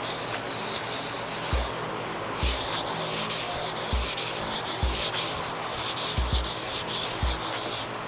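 400-grit sandpaper rubbed back and forth by hand over a cast-iron engine block's deck surface wetted with PB Blaster, in quick rasping strokes with a brief pause about two seconds in. Dull low thuds come every second or so.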